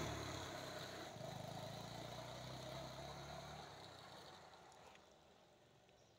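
Small motorcycle riding away, its engine fading steadily until it is barely heard.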